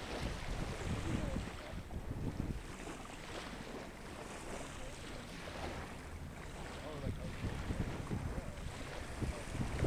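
Wind buffeting the microphone over a steady wash of surf. The gusts are heaviest at the start and again near the end, easing in between.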